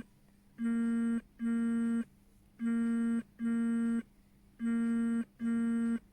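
Electronic beeping like an alarm clock: three pairs of short, steady, buzzy beeps, one pair every two seconds.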